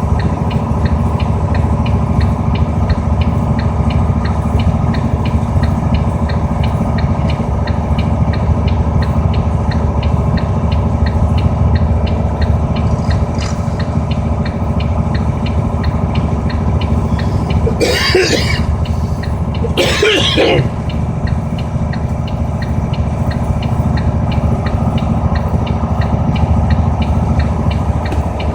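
Steady low road and engine rumble heard inside a moving car's cabin, with a faint even ticking throughout. Someone coughs twice in quick succession about two-thirds of the way through.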